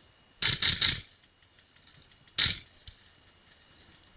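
Airsoft rifle fired in short bursts: a rattling string of shots lasting about half a second, then a brief burst about two seconds in.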